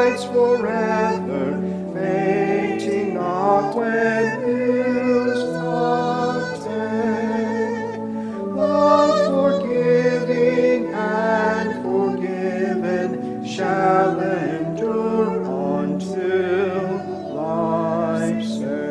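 Voices singing a slow hymn, with vibrato on long held notes over steady low sustained notes.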